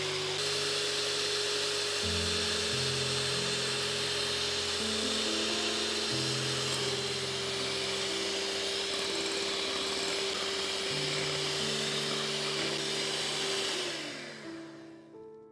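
Electric hand mixer running with a steady motor whine, its beaters whipping egg whites into meringue; near the end the whine falls in pitch and dies away as the mixer is switched off. Background music plays underneath.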